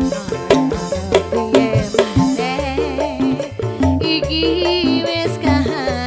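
Live campursari music played through a PA: a woman singing with vibrato into a microphone over a band with sharp hand-drum strokes and a repeating bass line.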